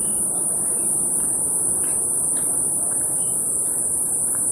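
Insects droning steadily in one shrill, unbroken high-pitched band, over a low, even rushing noise, with a few faint short chirps.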